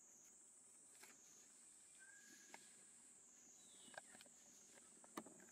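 Faint scattered crackles of dry leaf litter as a baby macaque moves over it, the sharpest near the end, over a steady high insect drone that swells and fades about once a second.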